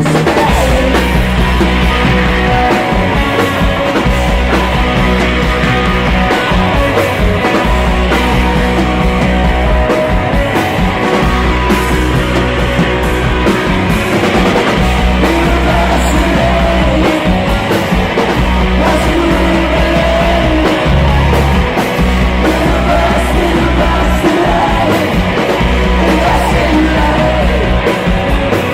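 Live rock band playing a loud song, with a steady bass and drums underneath.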